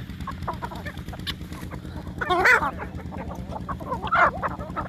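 A flock of Aseel chickens clucking while feeding, with short calls throughout and two louder squawks, one about two and a half seconds in and one near the end. A low steady hum runs underneath.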